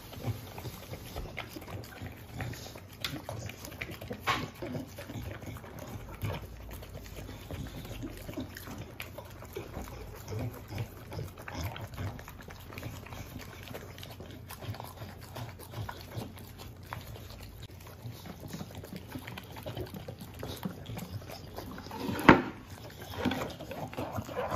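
Two American Bully dogs licking and eating soft mashed purple sweet potato and chicken cake off a plate: wet lapping, smacking and chewing, irregular and continuous. A sharp click stands out about 22 seconds in.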